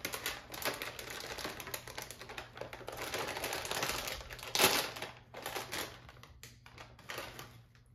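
Crinkly plastic snack bag of shrimp chips being opened and handled: a dense run of fine crackling, with one louder crackle a little past halfway, easing off near the end.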